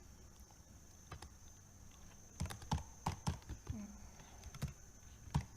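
Typing on a computer keyboard: an irregular run of keystrokes, mostly in the middle of the stretch, with a faint steady high-pitched tone underneath.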